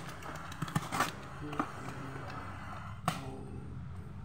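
Utility knife slitting the packing tape on a cardboard box: scratching and scraping against the cardboard, broken by a few short sharp clicks and knocks, the loudest about three seconds in.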